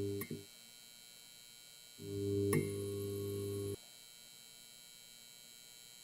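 Electrical buzz of a neon sign flickering on, a low steady hum. It cuts off just after the start, then returns about two seconds in with a click and hums for nearly two seconds before stopping abruptly.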